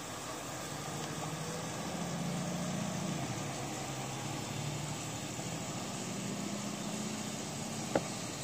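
Garbage truck's engine running steadily, swelling a little a couple of seconds in, with a faint rising whine over it. A single sharp click near the end.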